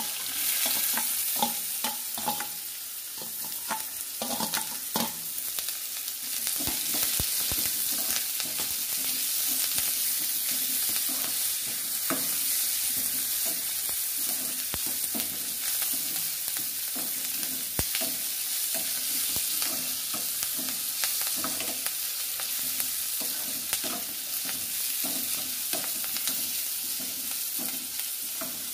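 Chopped onions, curry leaves and green chillies sizzling in hot oil in a small kadai, being sautéed for a sambar tempering. A steel spoon clicks and scrapes against the pan as it stirs, most sharply in the first few seconds.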